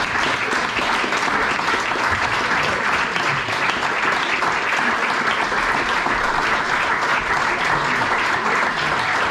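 Audience applauding, a dense, steady clapping that keeps up at an even level.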